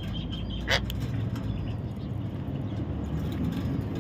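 A bird's single short chirp, sweeping quickly upward in pitch, about three-quarters of a second in, over a steady low rumble.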